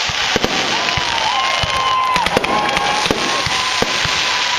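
Fireworks display: a dense crackle pierced by many sharp bangs, with several whistling effects that each hold a steady tone and then drop in pitch.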